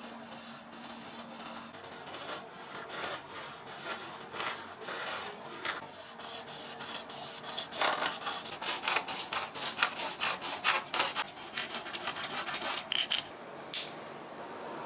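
A bare hacksaw blade works on a PVC pipe by hand. It first scrapes lightly around the pipe to score a groove, then saws across it from about eight seconds in with faster, louder strokes, about three a second. A single sharp scrape or clack comes near the end.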